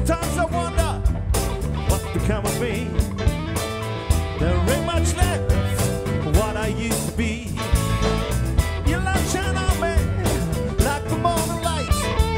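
Live band playing with drums, bass guitar and electric guitar, a lead line of bending notes over a steady beat.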